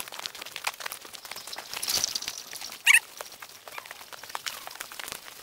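Footsteps and the crunch and swish of walking along a leaf-littered forest trail into grass, a dense run of small crackles, with a louder rustle about two seconds in. Just before three seconds a brief, sharp, high call cuts through.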